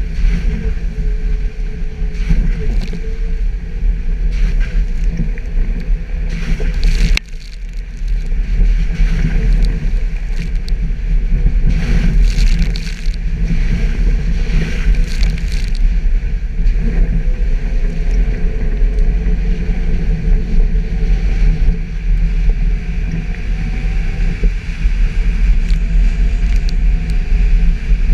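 Suzuki Jimny engine running steadily while the vehicle drives off-road, a loud low drone that dips briefly about seven seconds in. Bursts of rushing, hissy noise come over it a few times, around the middle.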